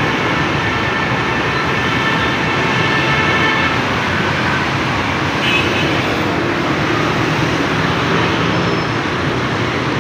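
Dense road traffic: a steady mix of car and motorcycle engines and tyre noise from a busy multi-lane road.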